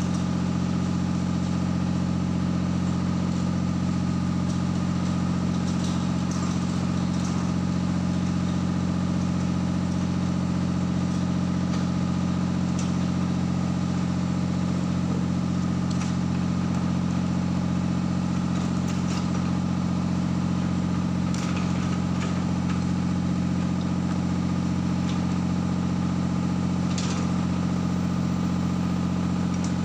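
A construction machine's engine idling steadily, an even low hum, with a few faint metallic clicks now and then.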